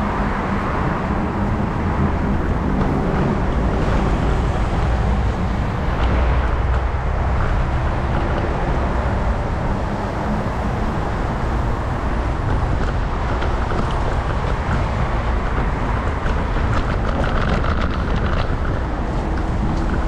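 Steady low rumble of wind and wheel noise while riding an electric kick scooter over pavement, with light clicks and rattles in the second half.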